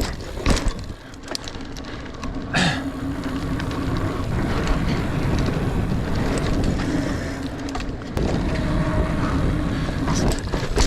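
Niner Air 9 RDO 29er mountain bike riding singletrack: tyres rolling on dirt in a steady rumble with a faint hum, the bike rattling, and sharp knocks over bumps, two of them in the first three seconds.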